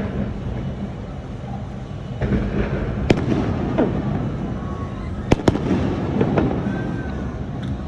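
Fireworks going off: a crackling run from about two seconds in, with a sharp bang about three seconds in and two more bangs close together about five seconds in.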